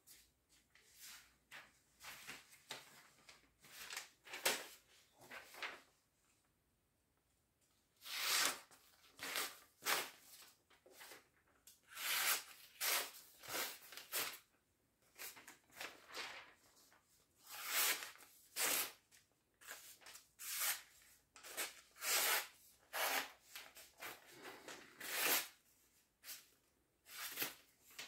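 Cold Steel OSS fixed-blade knife slicing through a sheet of paper again and again, short papery swishes about one or two a second from about eight seconds in. It is a paper test of the factory edge, which the owner finds not nearly sharp enough.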